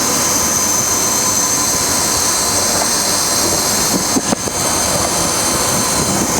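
End mill sharpening machine running, its grinding wheel grinding an end mill: a steady high whine over a hiss, with a brief dip and a couple of knocks a little after four seconds in.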